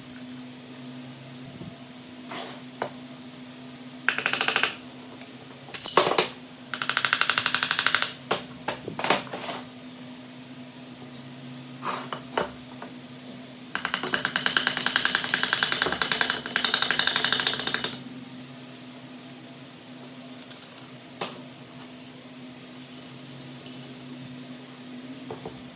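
Ratchet wrench clicking in rapid bursts as bolts are turned on the engine's crankcase, the longest run lasting about four seconds, with a few single metal knocks between.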